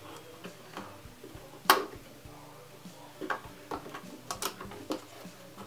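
A handful of sharp plastic clicks and taps from hands working the RC crawler's plastic body and its pull-tab body clips. The loudest click comes about two seconds in; the rest are spread over the following three seconds.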